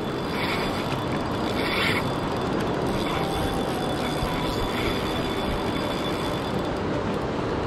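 Steady rushing of a river's current.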